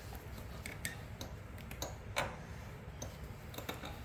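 Scattered light clicks and taps from small parts and tools being handled on a workbench, irregular rather than clock-like, with the loudest a little past two seconds in, over a low steady hum.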